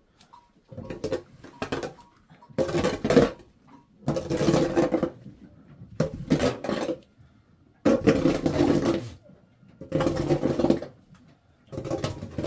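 Metal hoe blade scraping manure and dirt across a barn floor, in repeated pulled strokes about every couple of seconds, seven in all.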